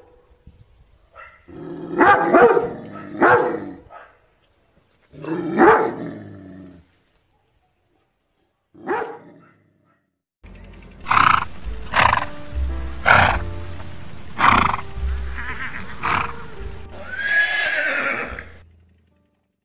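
A German Shepherd barking and howling in a few separate calls, then, from about halfway, a horse neighing several times over background music.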